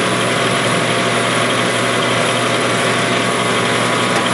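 Metal lathe running and taking a 40-thousandths-deep turning cut on a stainless steel Stirling engine hot cap: a steady, unchanging machine noise with a faint constant whine.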